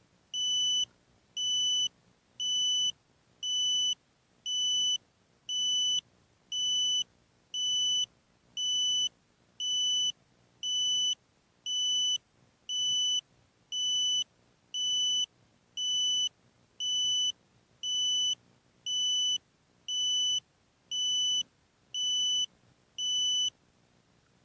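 Electronic beeper sounding a steady, high-pitched beep about once a second, each beep about half a second long. It repeats about two dozen times and stops shortly before the end.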